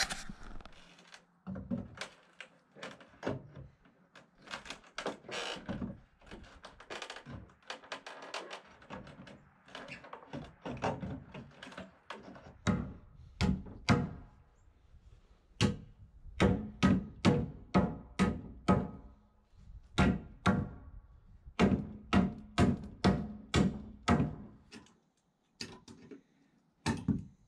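Hammer blows on wooden 2x4 boards: a long run of sharp knocks and thunks, irregular at first, then steadier strings of about two blows a second, with a short pause and a last couple of knocks near the end.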